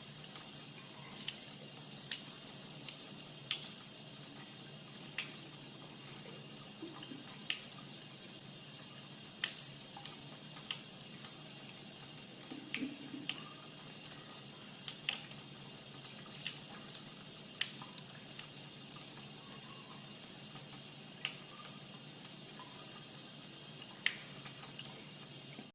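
Steady running water, with sharp ticks or drips at irregular intervals, about one a second.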